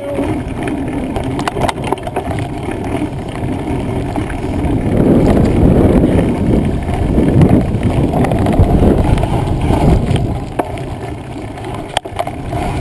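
Mountain bike being ridden over a rough woodland trail: tyre noise on the dirt and the bike rattling over bumps, with wind on the microphone. It gets louder and rougher from about five seconds in, easing off again around ten seconds in.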